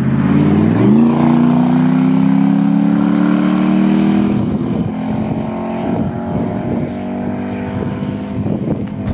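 Straight-piped Jaguar XJ8 3.2-litre V8, its exhaust cut off at the manifold, accelerating hard. The loud note climbs steeply in the first second, then rises more slowly, and from about halfway it drops a little and turns rougher as the car goes by.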